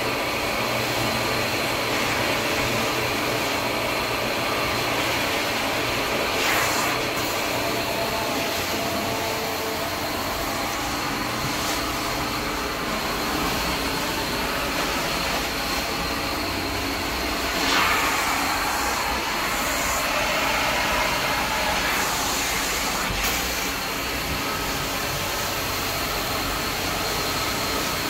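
Carpet extraction machine's vacuum running steadily, with a thin whine over the noise and a few brief louder surges as the wand works the carpet.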